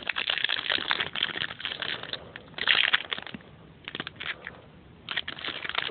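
Foil wrapper of a trading-card pack being torn open and crinkled by hand, in uneven bursts of crackling.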